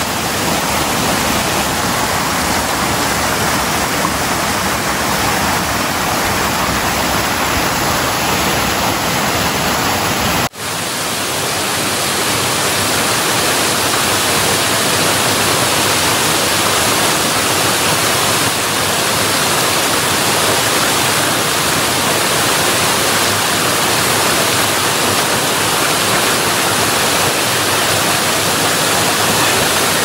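Waterfall: a steady, loud rush of falling water, broken by a brief dropout about ten seconds in.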